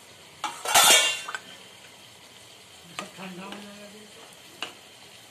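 Plastic spatula scraping and stirring thick chilli chicken gravy in a pan: one loud scrape about a second in, then a couple of light knocks against the pan.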